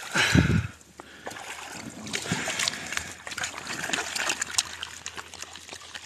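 Water splashing and trickling as a plastic gold pan holding gravel is dipped into muddy water to begin panning, with scattered clicks of grit. A loud low thump comes just after the start as the pan is handled.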